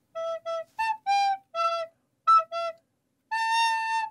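Solo recorder playing a simple tune in short, separated notes, with a brief pause about three seconds in and then one long held note near the end.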